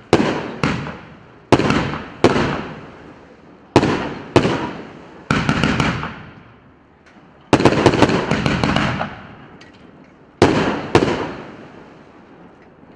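Saturn Rings PC950 consumer fireworks battery firing: loud bangs, mostly in pairs less than a second apart, each trailing off in a long echoing fade. A quick run of cracks comes about 5 s in and a dense volley about 7.5 s in. The last two bangs come about 11 s in and then fade away.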